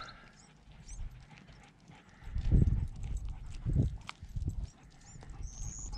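Two dull low thuds about a second apart, near the middle, with a few faint, short, high chirps scattered around them.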